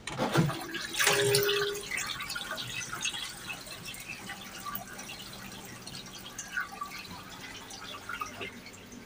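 Train lavatory toilet flushing after its button is pressed: a click, then a loud rush of rinse water about a second in with a short steady hum, trailing off into dripping and trickling.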